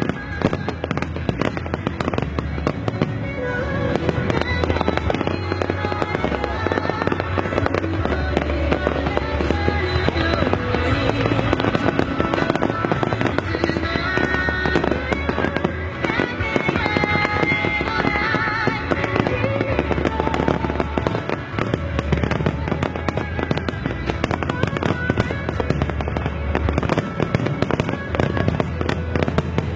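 Fireworks bursting and crackling continuously, over music with a steady bass line.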